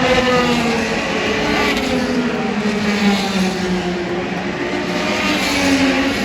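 A field of IndyCars running at pace-lap speed, several engine notes overlapping, with some falling in pitch as the cars pass.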